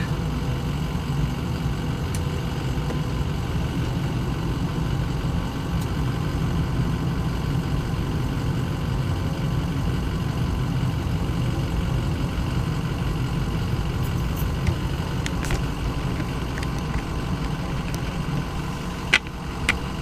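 Steady low diesel engine drone heard from inside a truck cab, with a few sharp clicks in the last few seconds.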